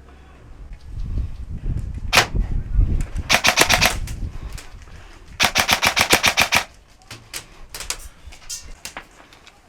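Airsoft rifle firing: one shot about two seconds in, then two rapid full-auto bursts of sharp clicks, each under a second long, followed by a few scattered single shots, over low rumble.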